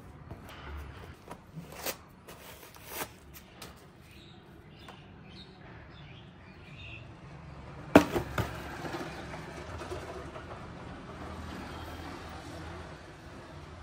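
Handling of sneakers and their packaging: light taps and rustles, then a sharp knock about eight seconds in as a sneaker is set down in its box, followed by a couple of smaller knocks. Faint bird chirps can be heard in the middle, over a steady low background hum.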